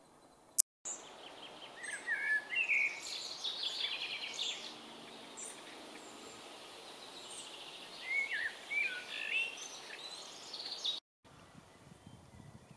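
Songbirds singing: quick chirps and sweeping whistled notes in two bouts, one about two seconds in and another around eight seconds, over a faint outdoor hiss. A sharp click comes about half a second in, and the sound cuts out for a moment near the end.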